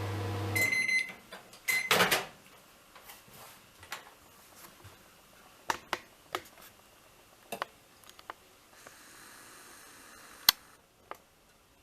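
Microwave oven's running hum cuts off under a second in, followed by its end-of-cycle beeps, two short high beeps, then a cluster of loud clicks and scattered sharp clicks and knocks.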